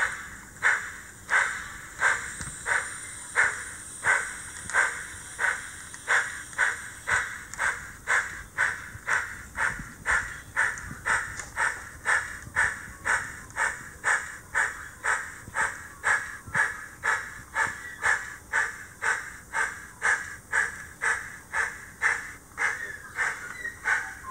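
Model steam locomotive sound chuffing at a slow, steady beat, about one and a half exhaust puffs a second, as an HO scale steam engine runs at low speed.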